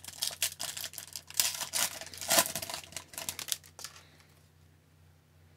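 Foil wrapper of an Upper Deck hockey card pack being torn open and crinkled by hand: a quick run of crackles and rips that stops about four seconds in.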